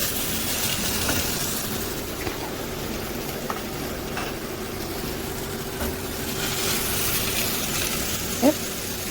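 Oil sizzling in a preheated air fryer oven pan as raw chicken breast is laid in, a steady hiss that swells and eases, over the steady hum of the oven's convection fan, with a few light clicks of handling.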